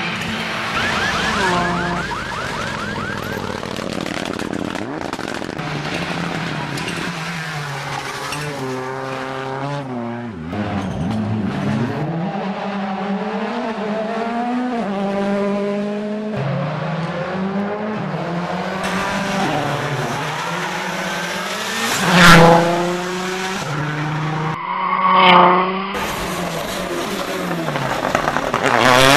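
A string of rally cars driven flat out on a closed road stage, engines revving hard, the pitch climbing through the gears and dropping off as each car passes. The two loudest, closest pass-bys come together about three-quarters of the way through.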